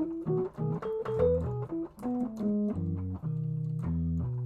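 Keyboard with a sustained, organ-like tone playing a quick run of single notes and then several held chords. It is demonstrating a diminished-scale passage that connects one key to the next.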